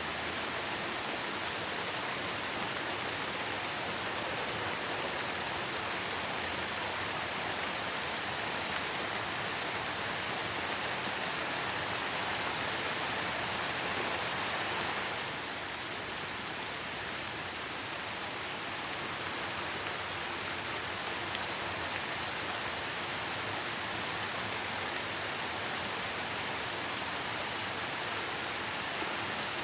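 Steady rain falling, an even hiss that eases slightly about halfway through.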